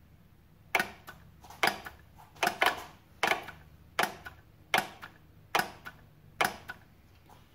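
Carbureted outboard's choke solenoid clicking as it is energized again and again with a jump wire: about nine sharp clacks, roughly one a second, as the freshly cleaned plunger snaps the choke linkage. The plunger is now moving freely.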